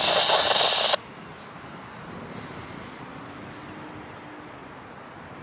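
A scanner radio transmission, tinny and loud, cuts off abruptly about a second in. Faint outdoor background noise follows, with a faint low hum in the middle.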